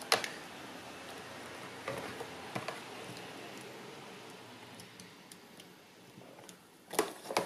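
Scattered light clicks and taps of wire connectors and leads being handled as battery leads are pushed onto the terminals of a small 12-volt battery inside a plastic ammo box, with a louder cluster of clicks near the end.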